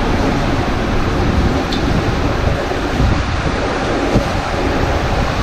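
Rushing water and an inflatable ring raft rumbling down the inside of an enclosed water-slide tube: a loud, steady rush with heavy low rumble, and wind buffeting the microphone.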